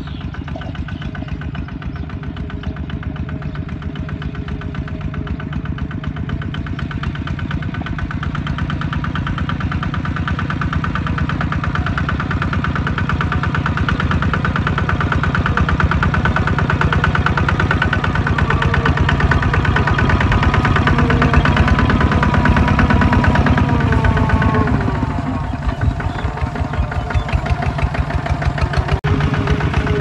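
Two-wheel walking tractor's single-cylinder diesel engine running with a rapid, even chugging beat while it pulls a trailer through rice stubble. It grows louder as it comes closer, dips briefly about three-quarters of the way through, then picks up again.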